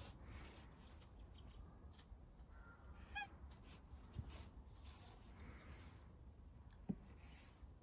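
Near silence: faint outdoor quiet with a few short, high chirps scattered through, a brief pitched call about three seconds in, and a soft tap near the end.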